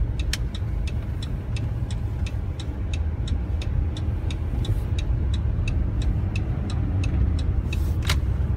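Car cabin noise while driving on a snow-covered road, a steady low rumble, with the turn-signal indicator ticking evenly at about four ticks a second through a turn. Near the end the ticking stops and there is one louder click, as the signal cancels.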